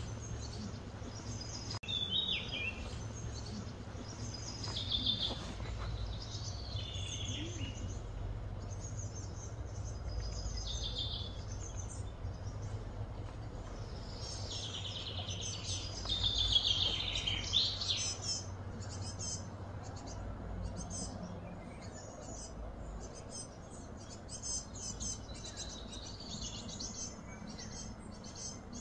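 Small birds chirping and calling on and off, loudest in a burst a little past halfway, over a steady low hum.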